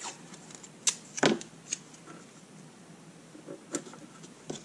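Hands handling strips of blue masking tape and pressing them onto the box's panels to hold the front panel in place: a few sharp taps and clicks, the loudest a pair about a second in, fainter ones near the end.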